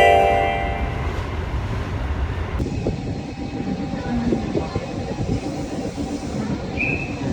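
Train running with a steady low rumble. A chime-like ringing fades out in the first second.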